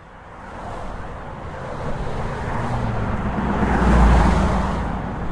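A car driving past, its engine and tyre noise building to loudest about four seconds in, then easing off.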